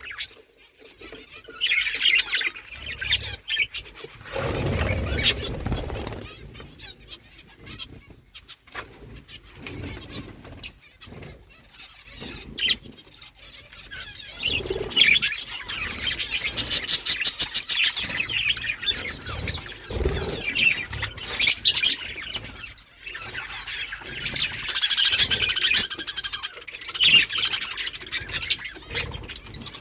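Pet budgerigars chirping and chattering over and over, with bouts of wing flapping.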